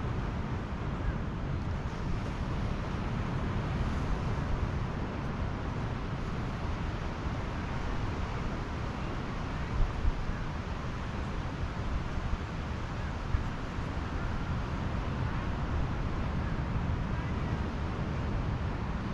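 Steady rush of Pacific surf on the beach, mixed with wind buffeting the microphone. A couple of brief knocks come about halfway through.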